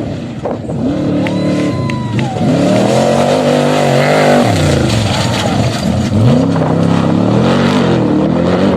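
Engine of an off-road vehicle revving, its pitch rising and falling several times as the throttle is worked.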